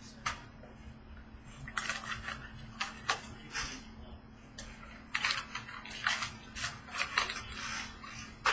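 Irregular rustling and crinkling of trading-card packaging and cards being handled, with a few sharp clicks, busiest in the last few seconds. A faint steady hum runs underneath.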